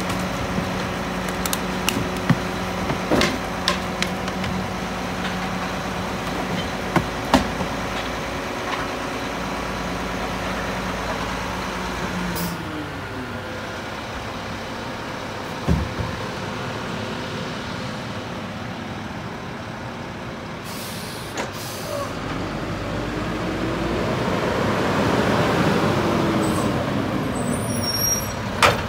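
Mack LEU garbage truck's engine running steadily, with scattered knocks and clunks as refuse goes into its front hopper. About twelve seconds in the engine note drops. After a short burst of air hiss, the engine revs up and falls away again as the truck moves off.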